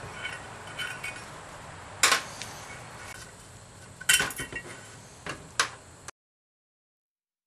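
Light clicks and clinks as transmission sealing rings are handled and worked onto the hub of an aluminium transaxle rear cover: one sharp click about two seconds in, a quick cluster of clicks around four seconds, and two more shortly after. The sound cuts off to silence about six seconds in.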